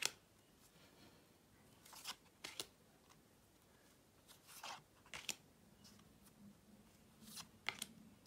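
Pokémon trading cards being flipped through by hand, each card slid off the stack with a short, sharp snap, often two close together, every second or two.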